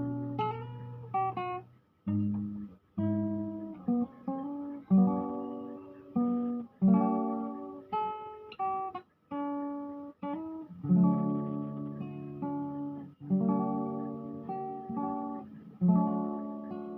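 Solo acoustic guitar played fingerstyle: a plucked melody over bass notes and chords, each note ringing and fading, with brief breaks between phrases.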